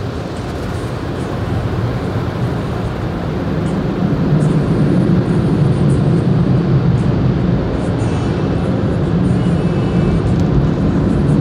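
Automatic tunnel car wash heard from inside the car: a steady rushing roar of the wash equipment, growing louder about four seconds in.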